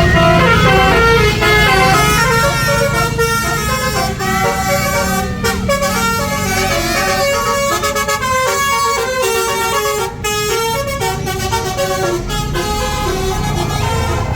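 Tour bus's basuri musical horn playing a fast melody of quickly changing notes, over the low rumble of the bus's engine.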